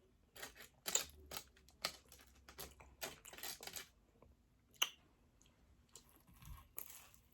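Close-miked mouth chewing food, with a rapid run of crunches and moist clicks for the first few seconds, then only a few scattered ones.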